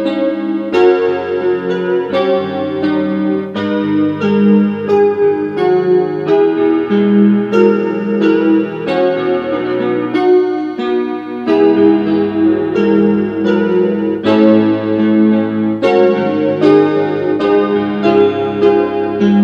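Solo piano music: chords and a melody over held bass notes.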